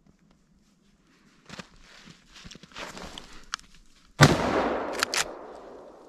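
Rustling and steps in snowy brush, then a single rifle shot about four seconds in that echoes and fades through the woods, followed by two sharp clicks.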